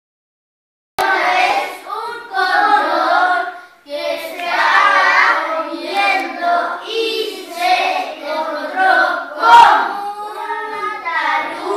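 A group of young children singing together in unison, starting suddenly about a second in.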